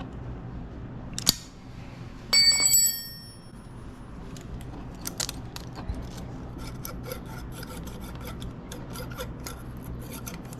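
Metal hand tools working on a Suzuki DR200's valve adjusters to set valve clearance: a click, then a tool clinks and rings briefly about two seconds in, followed by a long run of small light clicks and scraping.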